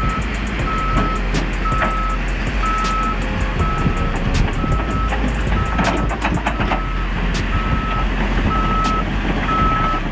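A heavy vehicle's reversing alarm beeping steadily, a little faster than once a second, over loud engine noise with scattered knocks.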